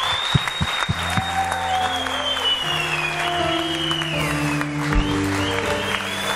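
Hands clapping in applause over background music; the music's bass line comes in about two and a half seconds in.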